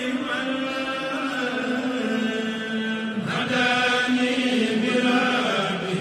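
Islamic devotional chanting in a mosque: a voice chanting continuously in long held notes that step and slide between pitches.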